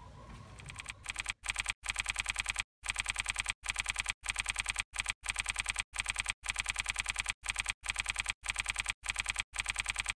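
Typing sound effect: rapid key clicks, about ten a second, in short runs broken by brief pauses, starting about a second in, played as end-card text is typed out.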